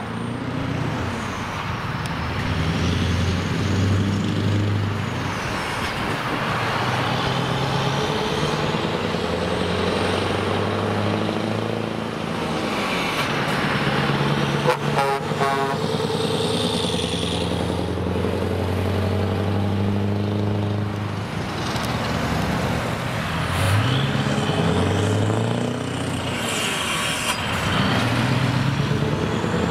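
Scania R500 V8 diesel truck with an open exhaust pipe, running under way as it drives up and passes, a deep, loud engine note. Its pitch rises twice near the end.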